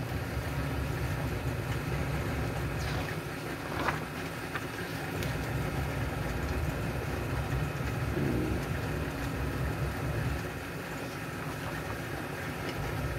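A steady low background hum, with paper pages of a book being turned about four seconds in and again near the end.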